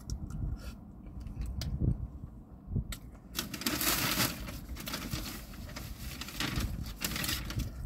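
Chewing and mouth noises from a person eating chili cheese fries, with scattered small clicks over a low rumble. A rushing hiss swells for about four seconds in the middle, then fades.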